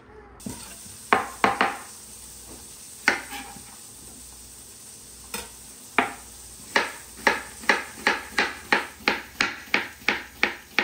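Sharp clicks of metal cooking utensils. A few come scattered, then a steady run of about two to three taps a second builds up from about six seconds in.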